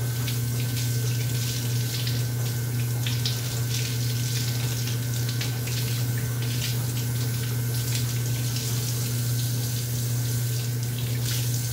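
Kitchen faucet running steadily, the stream splashing over a glass pane held under it and into the sink, with a steady low hum underneath; the glass is being rinsed of laser-marking spray residue after laser etching.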